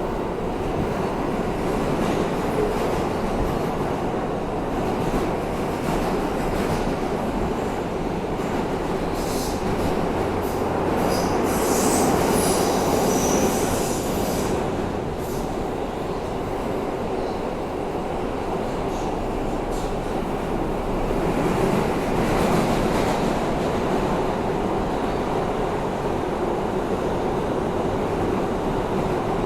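Interior of an R160A-2 New York subway car running at speed: a steady rumble of wheels, track and traction motors, heard without air-conditioning fans because the car's HVAC is broken. A high wheel squeal rises over the rumble for a few seconds around the middle.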